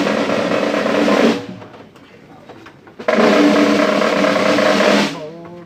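Procession band drums playing two loud snare drum rolls with bass drum, each about two seconds long, over steady low held notes. The second roll begins about three seconds in.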